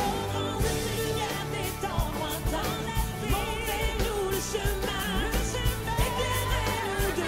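Song: a woman's voice singing long, wavering notes with vibrato over a band with drums keeping a steady beat.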